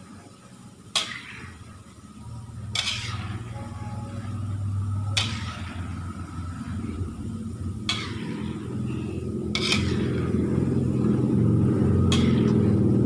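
A metal spoon stirring telur gabus frying in oil in a wok, striking the pan with a sharp, ringing clink about every two seconds over a faint sizzle. A low rumble of unclear source builds up from a couple of seconds in and is loud by the end.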